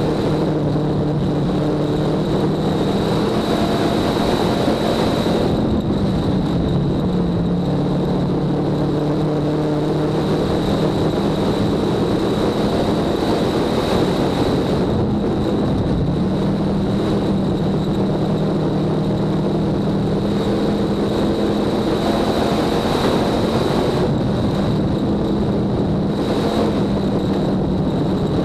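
Dirt track race car's engine running hard at racing speed, heard from inside the cockpit. Its pitch sags into each turn and climbs again down the straights, with a thin, steady high whine above it.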